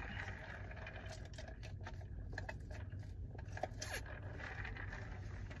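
Faint scattered clicks and scrapes of a paper fast-food soda cup with a plastic lid and straw being handled and sipped from, over a low steady hum.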